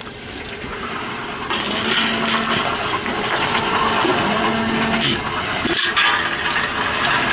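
Tomra 42 reverse vending machine taking in aluminum cans: its mechanism runs up about a second and a half in, with metallic rattling and clinking as cans pass through and are compacted. A short steady hum sounds twice, and there is a sharp knock near the end.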